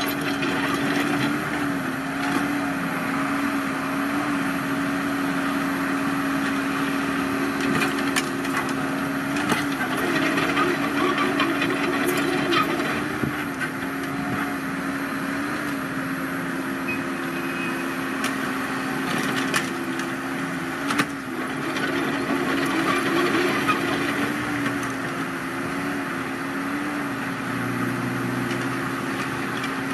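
Kobelco SK045 mini excavator's diesel engine running at a steady speed while its tracks crunch and clank over a dirt road, with scattered knocks from the undercarriage. Near the end the engine note changes and deepens as the machine turns.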